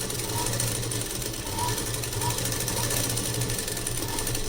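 Sewing machine running steadily at speed, a fast continuous rattle of needle strokes as it stitches a cotton binding strip onto a net blouse.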